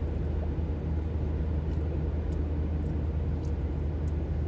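Steady low rumble of car engine and road noise heard inside the cabin of a moving car.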